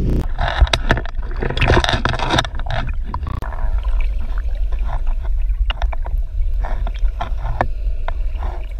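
Sea water splashing and sloshing around a camera as it is dipped from the surface into the water. It turns to a muffled underwater rumble with scattered small clicks and knocks after about two and a half seconds.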